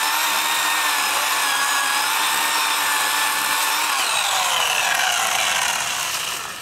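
McCulloch electric chainsaw running at a steady pitch as it cuts into shrub stems. About four seconds in it is released and its motor whine falls in pitch as the chain coasts to a stop.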